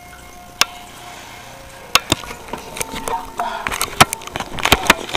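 A series of sharp knocks and clicks: one at first, then a pair about two seconds in and several more close together near the end.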